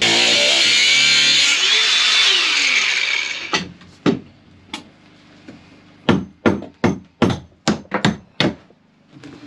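A loud rushing noise for the first three seconds or so, then hammer blows on metal: a few spaced strikes, then a quicker run of about eight, two to three a second, knocking at a seized small skin fitting.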